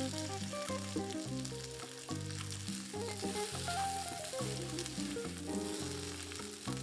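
Sliced potatoes sizzling steadily as they fry in hot fat in a pan, with a spatula stirring them near the end, over background music.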